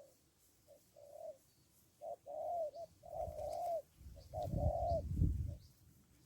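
Spotted dove cooing: a string of repeated coo phrases, short notes mixed with longer drawn-out coos. A low rumble sits under the later coos, from about three seconds in to near the end.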